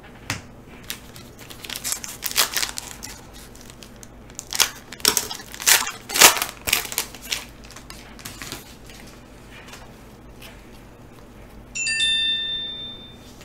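Foil wrapper of a Panini Prizm football card pack crinkling and tearing as it is pulled open, in two bouts of crackling. Near the end, a short electronic chime of several high steady notes sounds for about a second.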